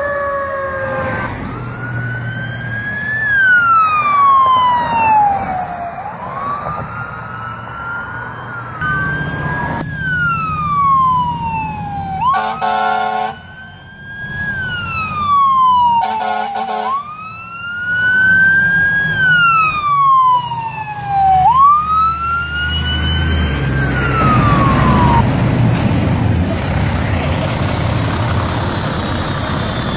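Fire truck sirens wailing, rising quickly and falling slowly every few seconds, with two blasts of a fire truck air horn midway. Near the end a fire truck's engine rumbles loudly as it passes close by.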